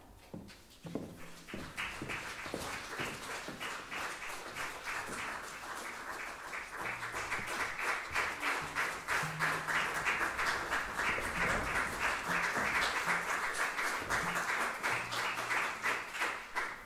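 Audience applauding, building up over the first couple of seconds and stopping abruptly near the end.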